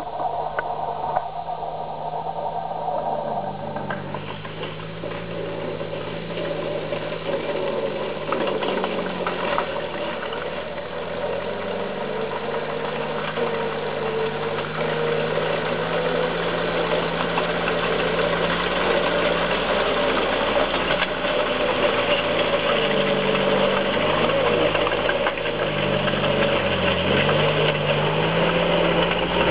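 Engine of a 1942 Bristol AF28 crawler tractor running steadily as the crawler drives in, its pitch wavering a little and the sound growing gradually louder as it approaches.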